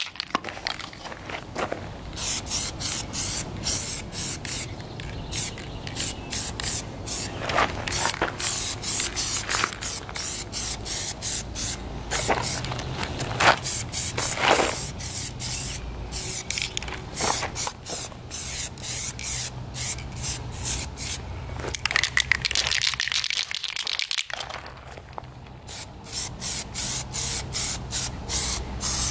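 Aerosol spray paint can spraying in many short, quick bursts, with a brief pause near the end before a last run of bursts.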